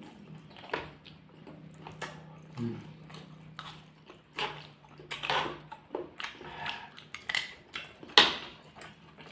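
Close-miked eating of gado-gado, raw chilies and krupuk crackers by hand: irregular chewing, biting and lip smacks, with a louder smack or crunch about eight seconds in. A faint low hum runs under the first six seconds.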